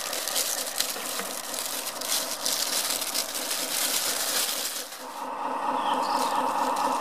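Rustling and light clattering as firelighter cubes from a plastic bag and pieces of wood are handled in and around steel barrels. About five seconds in, this gives way to a steady hum.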